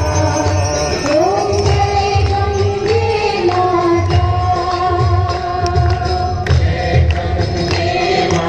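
Devotional aarti music: long held sung notes over a steady drum beat, with jingling percussion on top.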